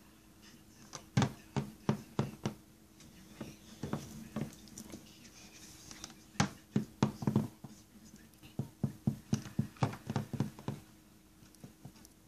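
Small plastic My Little Pony figures tapped along a hard surface as if walking: runs of quick light taps, about four a second, in three spells with short pauses between.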